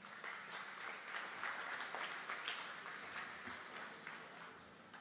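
Audience applauding, many hands clapping together, dying away over the last couple of seconds.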